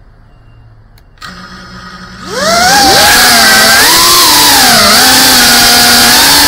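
The motors and propellers of a GEPRC Cinelog 35 FPV quadcopter, recorded by its onboard camera. They spin up at idle a little over a second in, then throttle up about two seconds in to a loud high whine whose pitch rises and falls with the throttle as the drone lifts off and flies.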